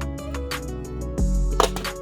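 Background music: bass, plucked guitar-like notes and regular drum hits, with a deep bass note entering about a second in.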